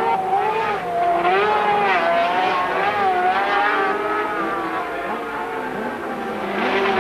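Several racing sidecar engines running hard in a close pack, their overlapping pitches rising and falling as they come off and on the throttle through the corners.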